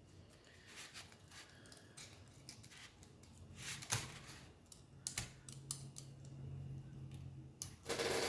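Small plastic clicks and taps with light rustling as a replacement laptop keyboard's ribbon cables are handled and seated into their connectors. The sharpest click comes about four seconds in, and a louder rustle near the end.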